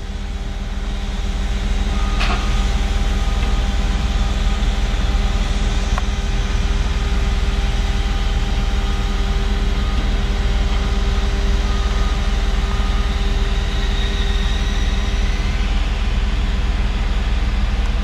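Engine of a truck-mounted crane running steadily while it holds a bronze bell up on its hook, with a sharp click about two seconds in.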